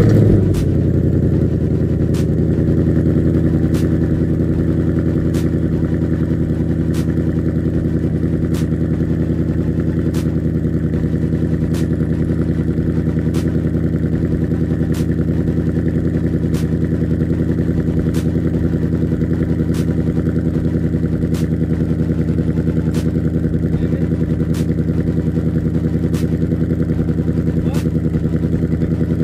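Ford S650 Mustang GT's 5.0-litre Coyote V8 through its stock exhaust with the active valves open, catching with a short flare right at the start, then settling into a steady cold-start fast idle.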